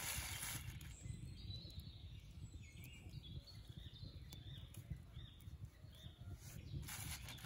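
A plastic bag rustling briefly at the start and again near the end, with soft handling noises as pieces of raw marinated meat are threaded onto a wooden stick skewer. Faint bird chirps sound in the background over a low outdoor rumble.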